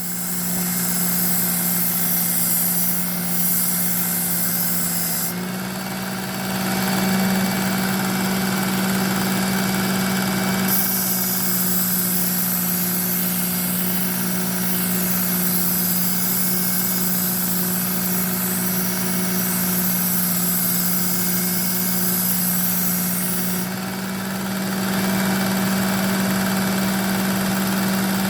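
Work Sharp Ken Onion belt knife sharpener with a coarse belt, its motor running steadily with a humming whir. Its pitch steps up slightly about five seconds in, and its sound shifts a few more times.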